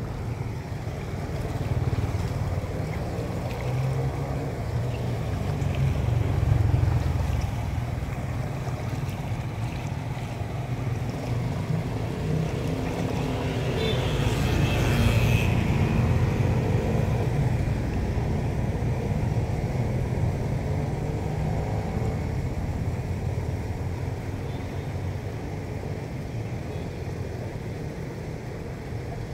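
Muddy rainwater draining from a street gutter through a cleared curb-drain grate, a steady low rushing rumble, with a brief louder hiss about halfway through.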